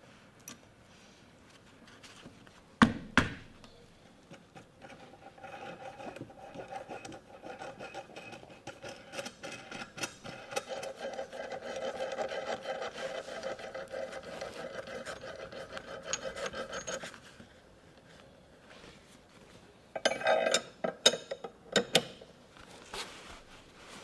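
A tool rasping and scraping on wood for about twelve seconds. Before it come a couple of sharp knocks, and after it a quick cluster of knocks.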